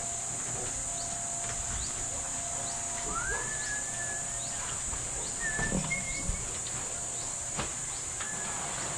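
A few short animal calls, rising and then holding, bird-like, about three seconds in, again near six seconds and once more near the end, over a steady high hiss and a few faint clicks.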